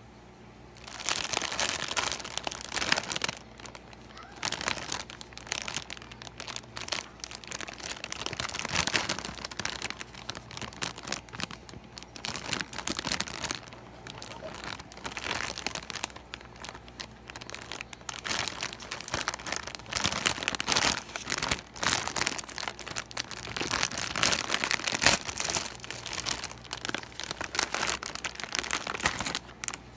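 Crinkly plastic snack bag, a Tohato Beano pea-snack packet, crackling and crumpling as it is handled and turned over, in irregular rustles that start about a second in.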